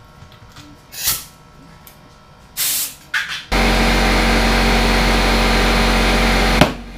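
Short hisses of compressed air from the air chuck, then a steady rush of air with a compressor's hum as a tyre on an aluminium rim is inflated. About six and a half seconds in comes one sharp pop: the tyre bead seating on the rim.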